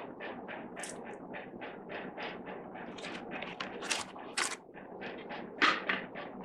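Packaging of a boxed mobile phone being handled: a run of short rustles, scrapes and light knocks as the phone and its accessories are lifted out, with a few louder scrapes a little after the middle.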